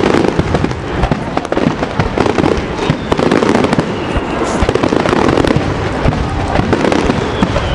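Fireworks display: a continuous, rapid barrage of bangs and crackles.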